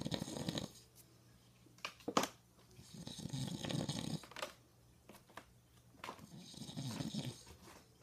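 A man snoring in his sleep: three long snores, one about every three seconds, with a brief sharp click between the first two.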